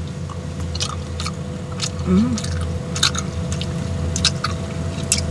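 A person chewing a mouthful of tagliatelle, with many small wet mouth clicks, and a brief "mm" about two seconds in. A steady low hum runs underneath.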